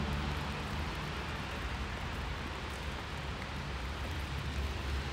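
Steady outdoor background noise, an even hiss over a low rumble, with the last low notes of music dying away in the first second.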